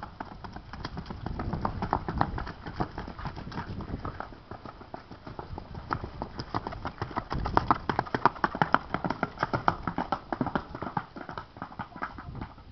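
A ridden horse's hooves clip-clopping on a packed dirt yard in rapid, even hoofbeats at a quick gait. The hoofbeats grow louder as the horse passes close, about halfway through, then fade as it moves away near the end.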